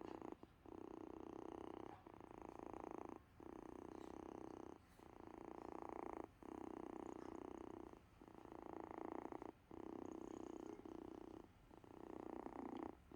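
A sick kitten purring, the purr going on in long stretches broken by a short pause for breath about every one and a half seconds.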